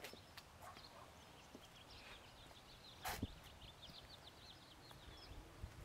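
Near silence with faint, quick bird chirping in the background and one sharp click about three seconds in.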